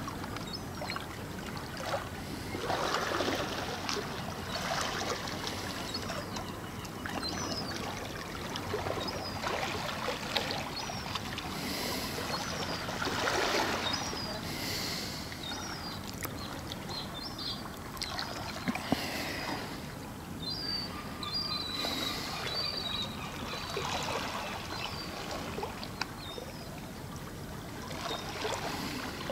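Water washing and splashing in repeated surges every couple of seconds, with short high chirps over it.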